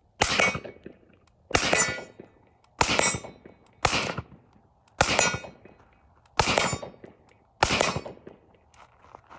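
Seven suppressed shots from an MK18 carbine, fired at a steady pace of about one a second, each a sharp crack with a short metallic ringing tail.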